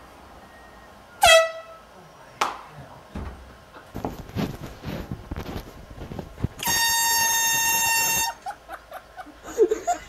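An air horn blast about seven seconds in, one steady tone held for about a second and a half. Before it come a sharp, brief squeak that drops in pitch about a second in, which is the loudest sound here, then knocks and shuffling.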